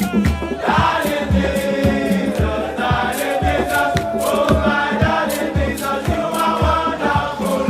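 Background music with a steady drum beat and choir-like singing.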